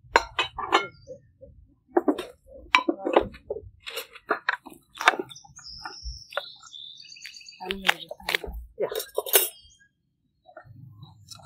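Knife clinking and scraping on a plate while goose meat is cut, and plates knocking on a wooden table, with people talking.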